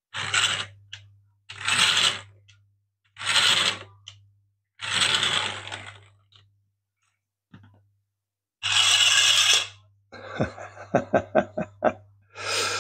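Plastic scraping and rattling from a 3D-printed rubber-band-powered toy car being handled: five short bursts about a second and a half apart, then a quick run of sharp plastic clicks near the end.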